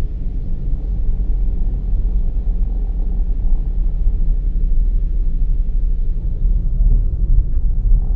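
A car driving along a road: a steady, low rumble of engine and tyre noise.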